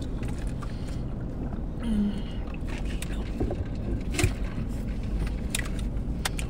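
Mouth sounds of burrito being chewed, with a few sharp smacking clicks, over a steady low rumble inside a car cabin.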